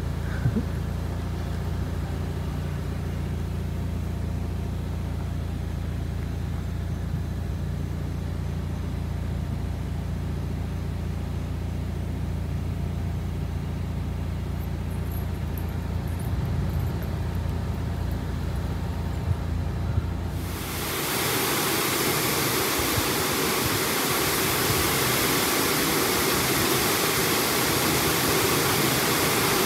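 A steady low hum, then about two-thirds of the way in a sudden switch to the loud, even hiss of torrential rain pouring down.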